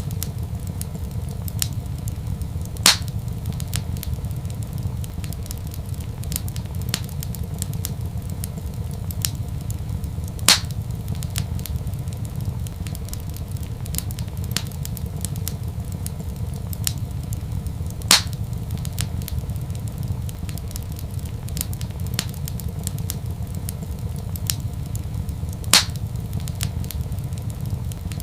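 Wood fire crackling in a fireplace: a steady low rumble under a constant scatter of small ticks, with four sharp louder pops spaced evenly through the stretch.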